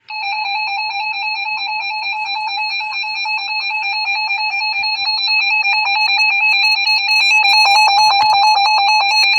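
Emergency alert attention tone: a loud electronic tone switching rapidly between two pitches, a few times a second, growing a little louder about halfway through.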